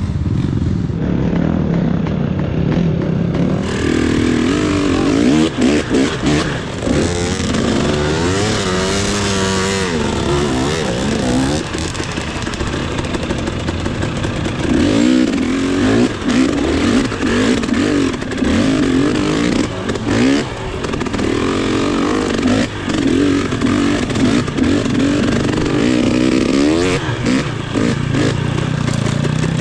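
Off-road motorcycle engine revving and labouring, its pitch rising and falling again and again as the throttle is worked, with rattling from the bike.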